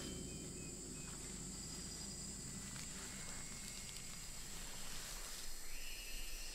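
Quiet tropical forest ambience with a steady high insect drone, and a soft rustle of dry leaf litter as a king cobra slides through it.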